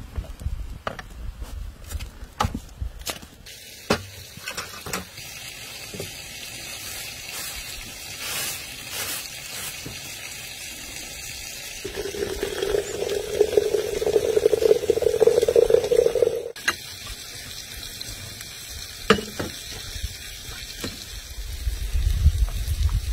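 Hot water poured from a kettle into a glass teapot of dried rose petals, giving a steady ringing pour tone for about four seconds, halfway through. Before it there are a few knocks and clicks, and near the end tea splashes into small drinking glasses.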